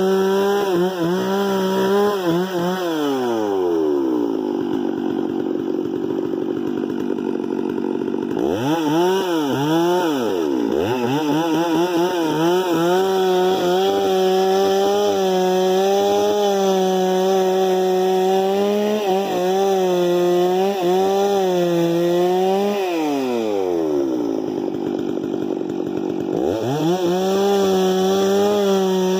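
Two-stroke chainsaw engine held at high revs, dropping to idle about three seconds in, revved back up with a few throttle blips after about eight seconds and held high for most of the rest, then idling again briefly before revving up near the end.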